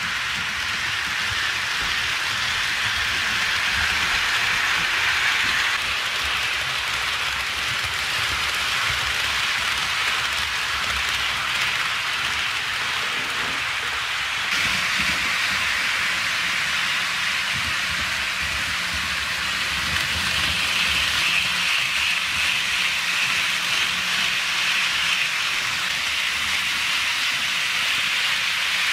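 HO scale model freight trains running on sectional track: a steady rolling rush of metal wheels on rail with a low motor rumble, stepping up a little about halfway through.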